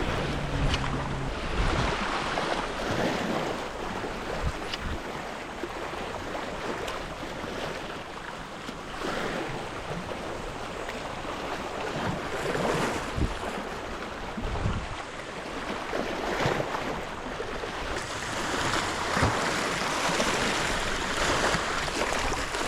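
Sea waves washing and surging, swelling and easing every few seconds, with some wind rumbling on the microphone.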